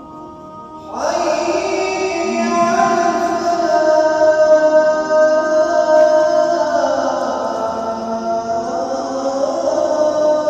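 A young man's voice chanting the Islamic call to prayer (azaan), coming in about a second in and holding one long, wavering, ornamented phrase.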